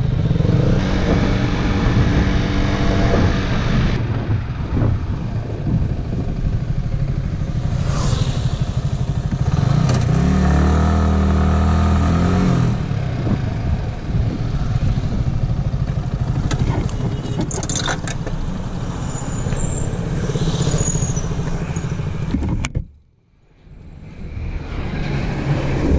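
Motorcycle engine running under way, with a rise and fall in revs about ten seconds in. The sound drops out briefly near the end.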